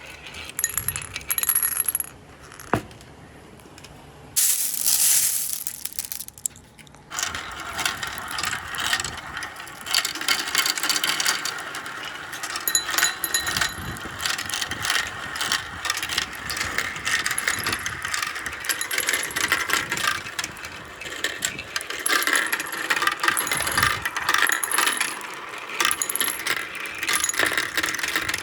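Many glass marbles rolling and clattering along a handmade marble run track, a dense rattle of small clicks. There is a short hissing rush about four seconds in.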